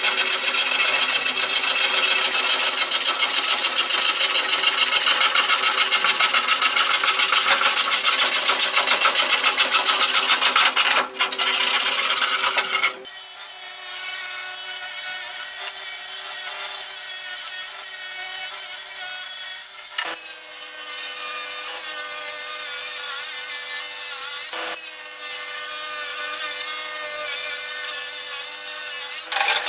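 Stanley handsaw cutting through a wooden board in quick, even back-and-forth strokes. About 13 s in it gives way to a panel saw running with a steady whine, feeding a long board through, and its tone drops a little about two-thirds of the way through.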